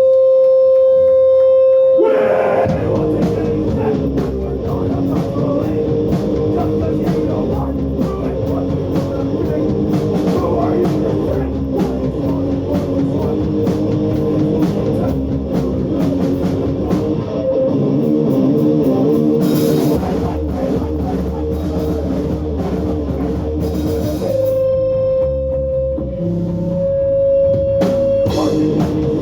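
A hardcore punk band playing live and loud: distorted electric guitar, bass and drum kit. It opens on a single held guitar tone, and the full band crashes in about two seconds in; near the end the playing thins under another held tone before the band comes back in.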